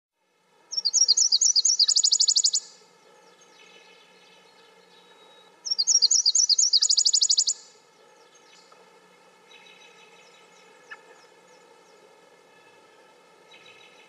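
Nashville warbler singing twice, about five seconds apart. Each two-second song is a run of sharp repeated notes that breaks into a faster trill. Fainter bird song sounds in between.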